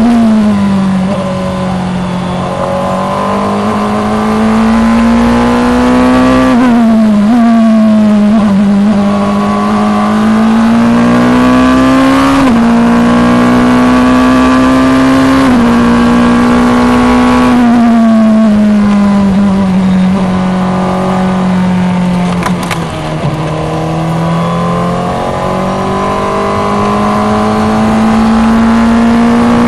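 Formula 2 single-seater's engine at racing speed, heard onboard: the engine note climbs through the revs and drops sharply at each upshift, about every three to six seconds, then falls away as the car slows about two-thirds of the way through before climbing again.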